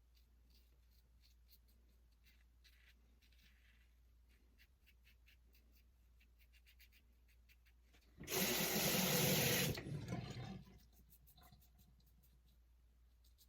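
Faint scratching of a Wolfman WR2 safety razor cutting lathered stubble in short strokes, then a tap runs for about two and a half seconds starting about eight seconds in, the loudest sound here. It then tails off and the faint strokes resume.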